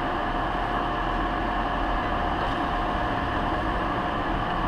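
Steady cabin noise inside a stopped car: a low rumble and hiss with one constant whine, unchanging throughout.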